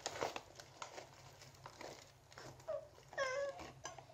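A paper bag crinkling and rustling as a dry baking ingredient is tipped out of it into a bowl. Near the end come two short cries that fall in pitch.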